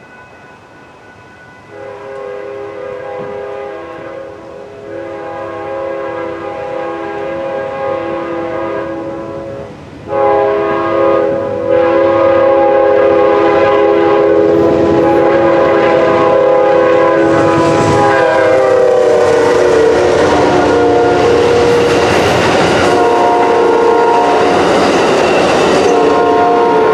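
Locomotive's multi-note air horn sounding in long blasts as a train approaches, growing louder, then dropping in pitch as it passes at speed. The rumble and clatter of the wheels on the rails swell under the horn in the second half.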